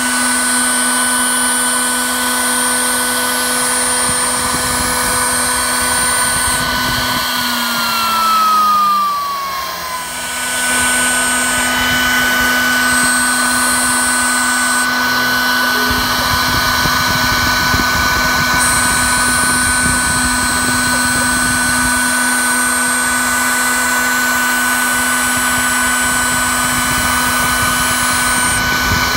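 Techno HD-II tabletop CNC router spindle running with a steady high whine while a single-flute O-flute bit routes a circle through clear acrylic sheet. About 7 seconds in the whine slides down in pitch and dips, then picks up again at its old pitch a few seconds later. From about halfway through, a rougher low rumble of cutting joins the whine.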